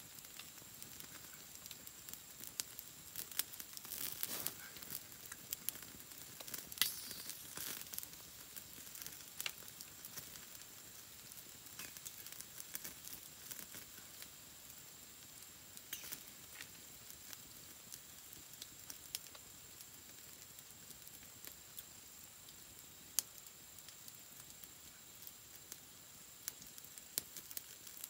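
Clicks and crackles of a small wood fire mixed with soft wet handling and leaf crinkling as raw frog meat is threaded onto bamboo skewers, busiest in the first several seconds and sparser after. A faint steady high tone sits underneath.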